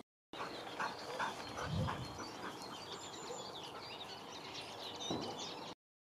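Husky dog whining and giving short yips, with high twittering behind.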